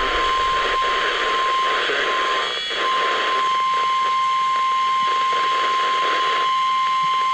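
NOAA Weather Radio warning alert tone: a single steady high tone near 1050 Hz, held over radio static hiss from a weather radio's speaker. It breaks up briefly about two and a half seconds in.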